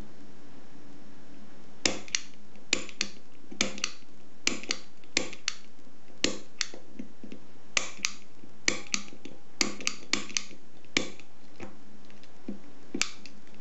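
Southord pick gun snapped repeatedly against the pins of a pin tumbler lock: sharp metallic snaps, irregular, about one to two a second, starting about two seconds in, over a faint steady hum.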